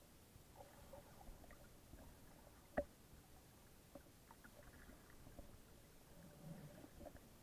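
Faint, muffled sound heard underwater in shallow sea water: a low wash with scattered small clicks and one sharp tick just under three seconds in.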